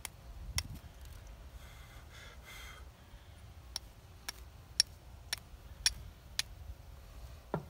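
Flint-and-steel strikes: a steel striker hitting a hand-held stone to throw sparks onto freshly made char cloth. There is one sharp click, a pause of about three seconds, then six quick strikes at about two a second.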